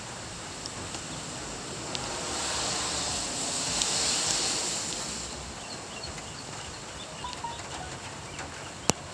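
Steady rain falling outdoors, its hiss swelling for a few seconds in the middle, with scattered sharp drip ticks and a single click near the end.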